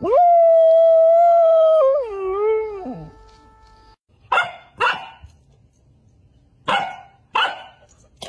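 Samoyed howling one long "awoo" for about three seconds, holding its pitch, then wavering and dropping at the end. After a short pause a Samoyed puppy gives four short, sharp yips in two pairs.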